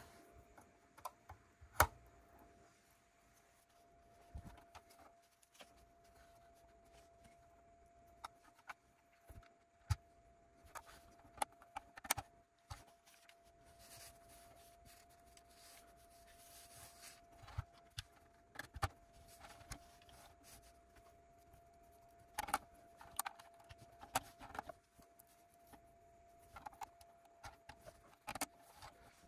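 Plastic Lego pieces clicking and rattling as they are handled and snapped together: irregular sharp clicks, some louder than others.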